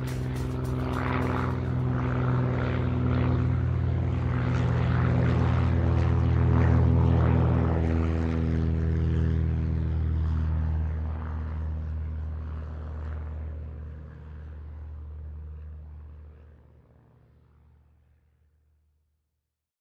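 Propeller engines of light aircraft (student-built RANS S6 Coyote microlights) droning steadily as they fly past, then fading out over the last several seconds.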